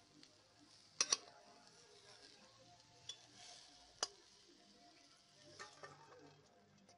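Fried potato and eggplant pieces sliding from a metal wok into a steel bowl, with a faint sizzle and sharp clinks of metal on metal: two close together about a second in, then single knocks and a few small clinks later.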